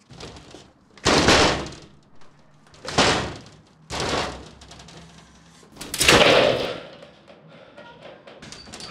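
A door being rammed with a shoulder: about four heavy thuds, the loudest about six seconds in as it gives way, over background music.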